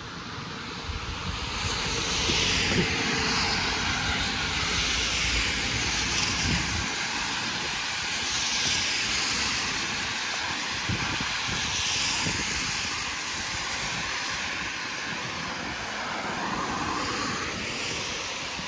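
Airplane passing overhead: a steady roar that swells over the first two seconds and holds, with a slowly sweeping whoosh in its upper range.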